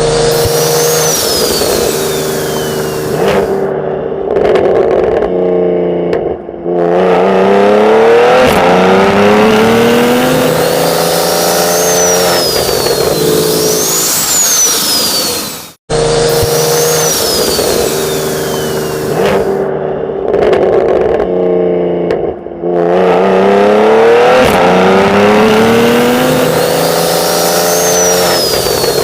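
Turbocharged BMW engine accelerating hard, its note climbing steadily in pitch through the revs and briefly dropping before climbing again, with a high turbo whistle rising and falling above it. The same run plays twice.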